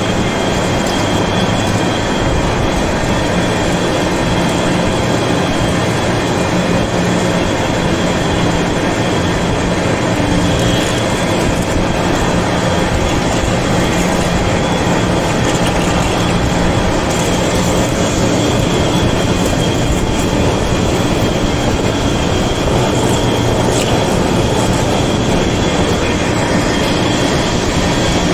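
Heavy vertical lathe turning a large metal ring, its cutting tool working the face: a steady machine hum with a thin, steady high-pitched whine from the cut.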